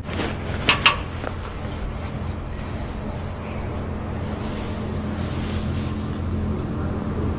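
Steady low hum of a running vehicle, with two sharp clicks just under a second in and a few faint high squeaks.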